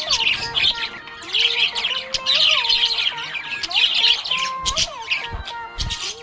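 Budgerigars chirping and warbling in rapid, continuous chatter.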